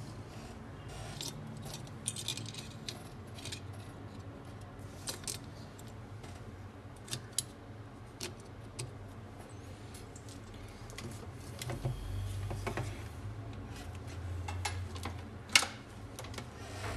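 Light clicks and taps of a disassembled smartphone's metal frame and circuit board being handled on a workbench, with one louder click near the end.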